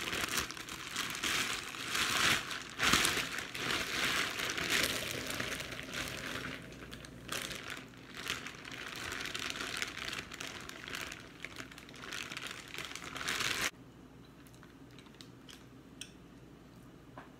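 Clear plastic bag crinkling and rustling as it is pulled open and handled. The crinkling stops abruptly about three-quarters of the way through, leaving only a few faint ticks.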